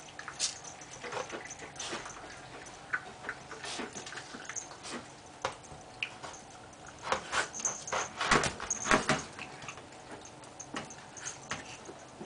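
Small Shiba Inu dogs eating fast at their food bowls: scattered clicks, crunches and licking sounds, busiest about seven to nine seconds in.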